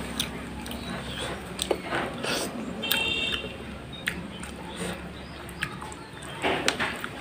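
Close-up wet eating sounds: chewing and lip-smacking on fish and rice, with squelches from fingers working rice into curry gravy, in a run of short clicks and smacks. A brief high-pitched squeak sounds about three seconds in.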